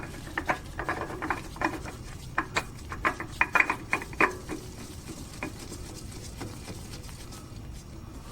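New spin-on oil filter being threaded onto its mount by hand: a run of small clicks, taps and scrapes of the filter and fingers over the first four seconds, then only a low background.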